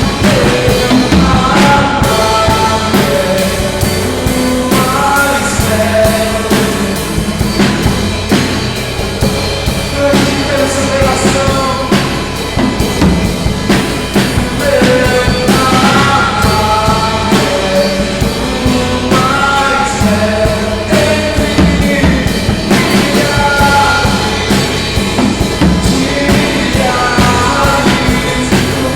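Live worship song: a singer over acoustic guitar and a Dolphin drum kit with Orion cymbals, played steadily, recorded through a phone's microphone.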